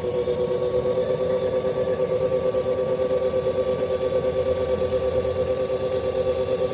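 Kama3 5511 1/10-scale 6x4 RC truck running: a steady, even hum with a quick regular pulse.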